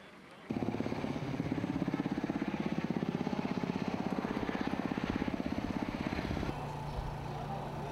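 Military helicopter flying overhead, its main rotor giving a fast, even thudding beat. About six and a half seconds in it gives way to a steadier low engine hum.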